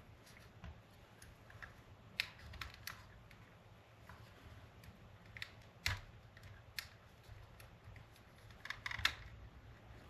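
Faint, scattered clicks and taps of small parts being handled as a slot car track-cleaning pad is worked loose from its holder. The sharpest click comes about six seconds in.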